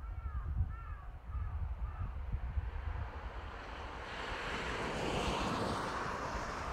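Crows cawing, several short arched calls in the first two seconds, over a low wind rumble on the microphone. In the second half a broad rushing noise swells up and stays.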